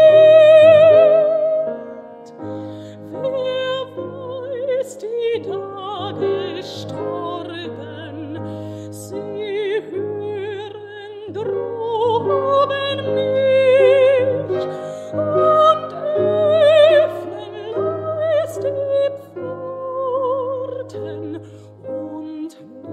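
Mezzo-soprano singing a German art song with wide vibrato over piano accompaniment. It opens on a loud held high note that ends about two seconds in, then continues in phrases over sustained piano chords.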